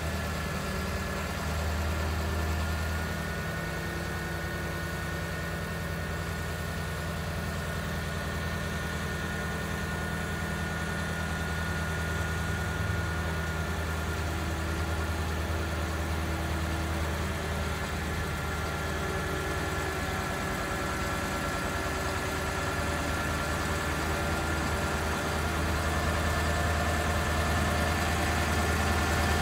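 Elliott L55R sign truck's engine running at a steady idle, driving the boom hydraulics as the aerial boom and basket are lowered, with a steady high whine over the low engine drone.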